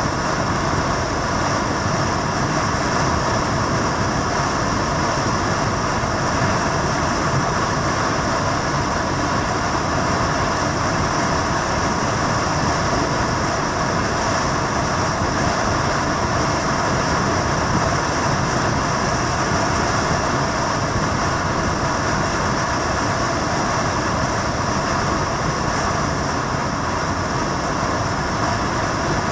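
Steady vehicle running noise: an even rumble and hiss that holds at one level with no changes.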